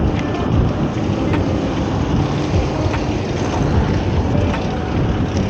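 Wind buffeting the microphone of a camera on a moving fixed-gear bicycle: a steady low rumble, with a few faint clicks.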